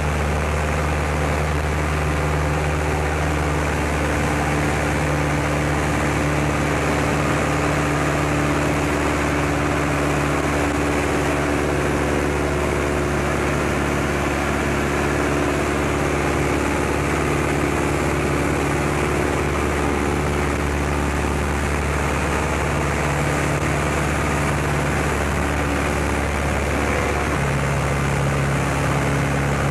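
Light aircraft engine and propeller droning steadily at cruise, heard from inside the cabin of the Champ, with a small change in the engine note near the end.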